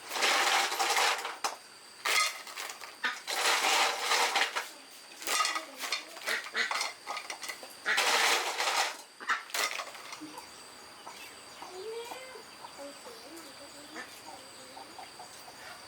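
Clattering and scraping of kitchenware, a pot or pan with utensils, in several loud bursts over the first ten seconds, then quieter with faint short chirps of small birds or chicks.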